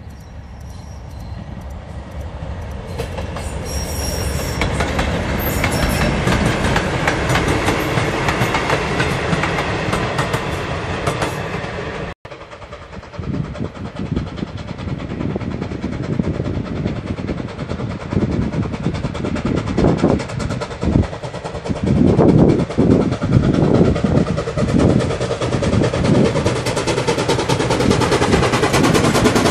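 A train running past and growing louder, then, after a sudden cut, a USA S160 2-8-0 steam locomotive approaching with a train of coaches, its exhaust chuffing in repeated beats that grow louder as it nears.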